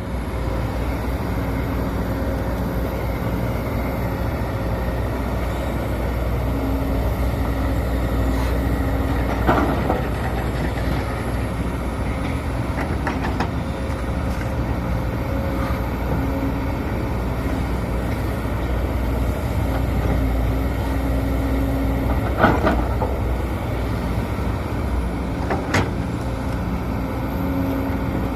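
Sumitomo SH210 hydraulic excavator's diesel engine running steadily under work, with a hydraulic whine that comes and goes as the controls are worked. A few sharp clunks from the bucket and boom.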